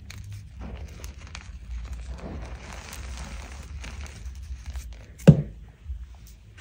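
Hands squeezing and crumbling soft dyed gym chalk, giving a steady soft crunching and rustling of powder and small lumps. A single sharp knock comes about five seconds in, and the crunching tails off after it.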